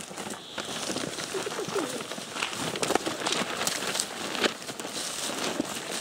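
Footsteps of hikers walking through grass and undergrowth, with rustling of clothing and backpacks and scattered sharp clicks.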